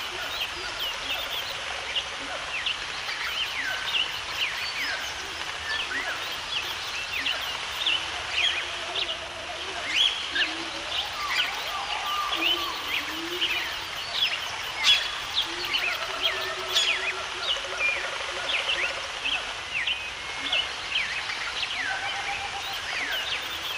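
Many birds chirping and calling at once, with quick short chirps and sweeps throughout and some lower, rippling calls, over a steady background hiss.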